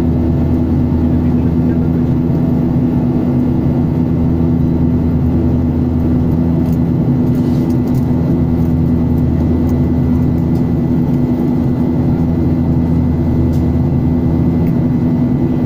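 Steady drone of a jet airliner's cabin in flight, heard at a window seat beside the turbofan engine: engine and airflow noise with a constant low hum.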